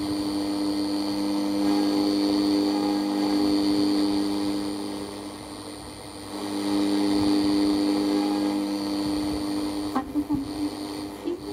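Sony CXA1619 radio receiver board's audio output on the medium-wave band: a steady buzzing hum with static hiss. It fades down about five seconds in and comes back up.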